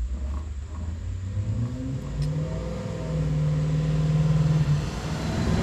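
A motor vehicle's engine running close by, a low rumble whose note rises a couple of seconds in, holds steady, then drops away near the end.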